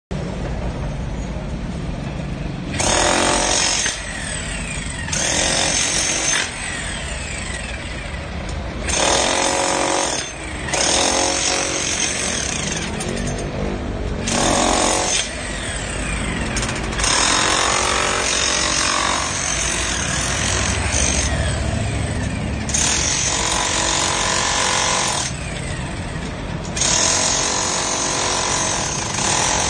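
Bosch GSH 500 5 kg corded demolition hammer with a flat hex chisel, hammering continuously as it breaks out concrete. The hammering swells into louder spells every few seconds.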